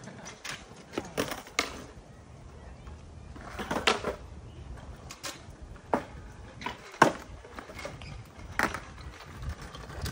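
Skateboard clacks on concrete: scattered sharp knocks of the deck and wheels hitting the ground, the loudest about seven seconds in.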